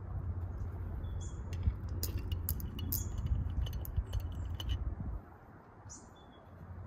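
Light metallic clinks and taps of an oil can and container being worked against a stationary engine's fittings, clustered in the middle, over a low rumble that cuts off suddenly about five seconds in. Short bird chirps can be heard.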